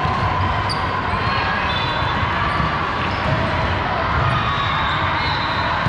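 Indoor gym noise during a volleyball rally break: a steady murmur of players and spectators, with short sneaker squeaks and a ball bouncing on the court floor.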